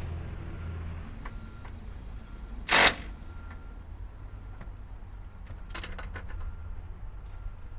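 Impact wrench fired in one short, loud burst about three seconds in against a stuck engine motor mount bolt, which does not come loose; a few light clicks of tool and socket follow near six seconds.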